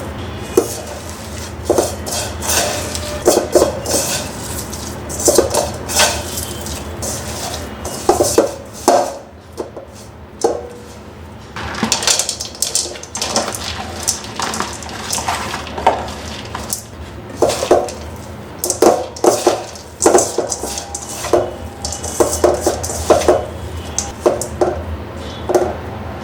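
Kitchen dishes and metal utensils clinking and knocking in irregular clusters of sharp strikes, some with a brief ring.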